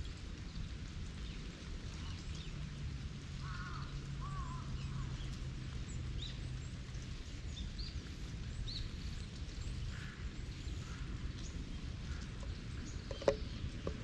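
Outdoor park ambience: a steady low hum with a few short, distant bird calls, and one sharp click near the end.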